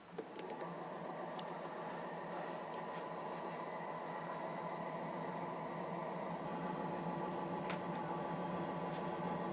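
A lathe running steadily while a split die makes a sizing pass along a worn lead-screw thread: an even machine hum with a thin high whine above it, growing slightly louder toward the end.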